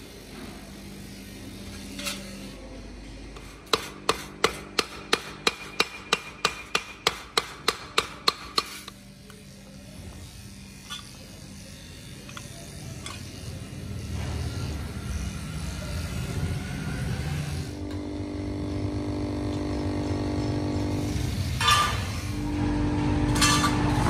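About fifteen hammer blows on a thin stainless steel piece, roughly three a second, each ringing briefly, as the sheet is shaped over a steel edge. After that a steady low rumble builds, with a held tone near the end.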